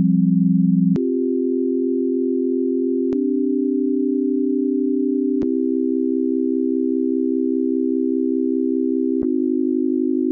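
Computer-synthesized chords of a few pure sine tones, held steadily in just intonation and switching to a new chord four times, with a short click at each change.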